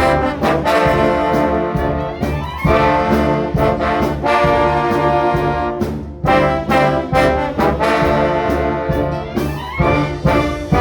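Orchestra playing a piece led by brass, with trombones and trumpets sounding sustained chords and accented notes.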